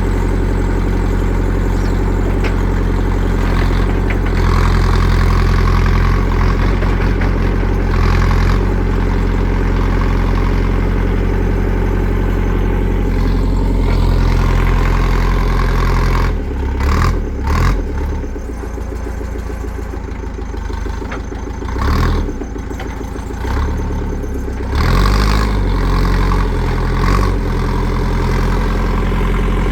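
JCB 3CX backhoe loader's diesel engine running hard and steady, then about halfway through easing off, with several brief surges in revs, before working hard again.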